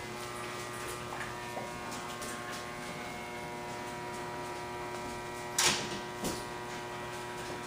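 Steady electrical hum of kitchen appliances, made of several held tones, broken about two-thirds through by a sharp knock and a smaller one just after.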